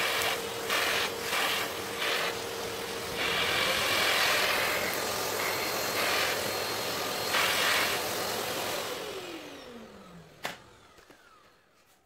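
Canister vacuum cleaner, fitted with a new motor, running while its bare hose end sucks up dirt and grit from the floor in several loud rushing surges. Near the end it is switched off: the motor winds down with a falling whine, followed by a single sharp click.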